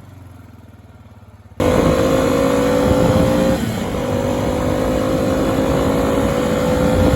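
Four-wheeler (ATV) engine running at steady high revs, loud and cutting in suddenly about a second and a half in after a quieter low engine sound; it eases off briefly near the middle, then holds again.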